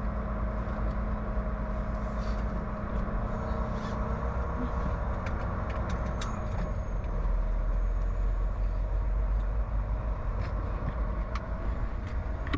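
Semi-truck diesel engine running under way, a steady low rumble with road noise and a few light clicks.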